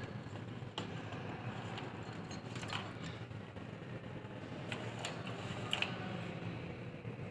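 A few separate light clicks and taps, as of computer parts being handled and fitted into a desktop system unit, over a steady low hum.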